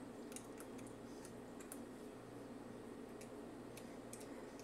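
Faint, scattered ticks and clicks of small metal screws and a small tool being fiddled into an aluminium angle bracket, over a low steady hum.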